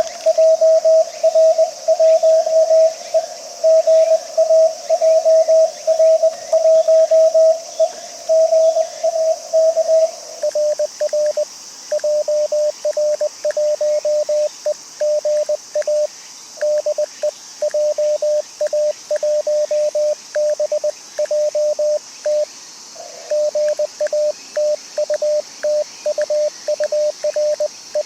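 Morse code (CW) tones from an amateur radio transceiver, keyed at around 20 words per minute. For about the first ten seconds a keyed tone sounds over a narrow band of receiver hiss. After that a slightly lower, cleaner keyed tone runs on with short gaps.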